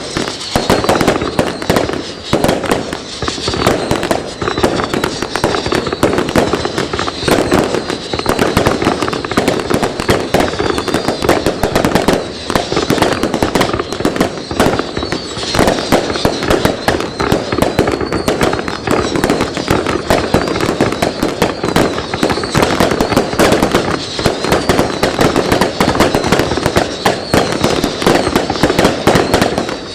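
Consumer fireworks firing in a dense, continuous barrage of bangs and crackles that barely lets up.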